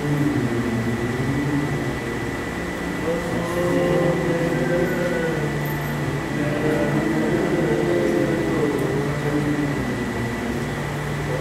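Voices singing a slow devotional aarti hymn in long, wavering held notes, over a steady low hum.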